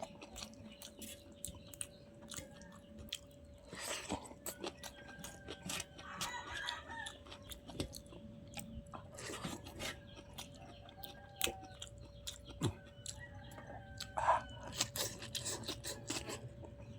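Close-up chewing and crunching of food, with many small mouth clicks, while chickens cluck in the background.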